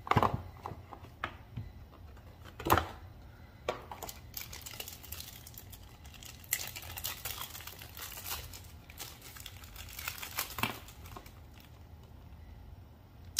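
A few sharp knocks as the headphones and box are handled and set down on a desk, the loudest about three seconds in, then several seconds of crinkling as a small clear plastic bag is opened and cables are pulled out of it.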